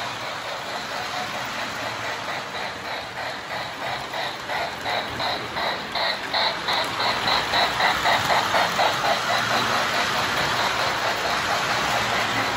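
O gauge model train running on three-rail track: an MPC-era Lionel Union Pacific Berkshire steam locomotive with its Mighty Sound of Steam unit giving an even, rhythmic chuff, a few beats a second, over the rumble and clatter of the wheels on the rails. It grows loudest as the locomotive passes close, about six to nine seconds in.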